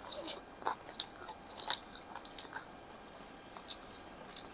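A person chewing food close to the microphone, with irregular soft lip smacks and small wet clicks.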